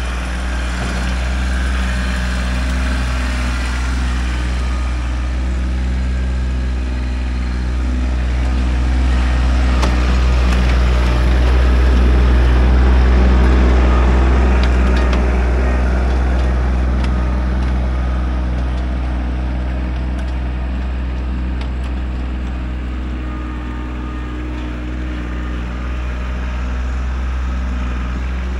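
Kubota tractor's diesel engine running steadily while pushing dirt, its note swelling louder towards the middle and easing off again.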